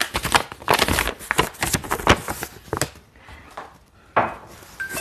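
Crinkling and rustling of plastic and paper packaging being handled and opened, a dense run of sharp crackles that thins out, with one sharper knock about four seconds in.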